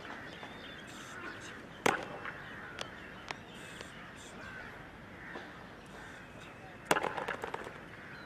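Parade-ground drill: a single hard boot stamp on the tarmac about two seconds in, then near the end another sharp crack followed by a brief rattle of smaller clicks. Crows caw in the background throughout.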